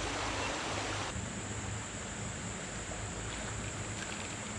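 Creek water running in a steady rushing hiss, easing slightly about a second in.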